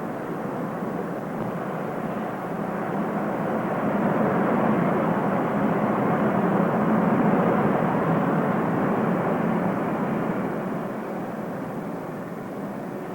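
Steady rushing factory noise with no distinct tones, swelling to its loudest about halfway through and then easing off.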